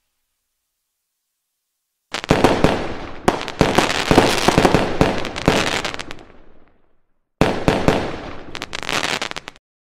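Aerial fireworks going off in a rapid string of bangs and crackles. They start about two seconds in and die away, then a second stretch starts suddenly and cuts off abruptly near the end.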